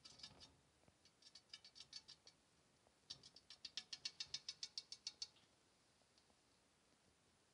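A white rabbit's claws tapping and scrabbling against terrarium glass as it kicks in a constricting boa's coils: quick sharp clicks about seven a second, a short run and then a longer, louder run that stops suddenly.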